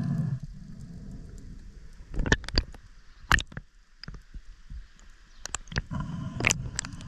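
Underwater sound through a camera housing: a low rumble of moving water under a faint steady hum, broken by several sharp clicks and knocks, a cluster of them about two to three and a half seconds in and more near the end.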